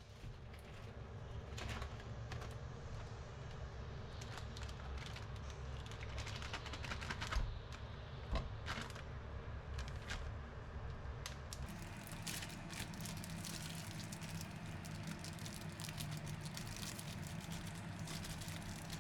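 Kitchen sounds: a low rumble with scattered sharp clicks and knocks of utensils, then from a little past halfway a steady crackling sizzle of food frying in a pan.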